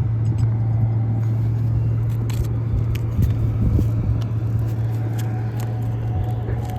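A steady low motor hum runs throughout, with scattered light clicks and scrapes from hand tools working on brittle asphalt shingles.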